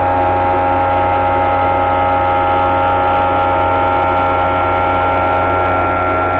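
Bridgeport milling head spinning an end mill at its top speed of 2720 RPM while climb-milling UHMW plastic, with a steady hum of several held tones throughout.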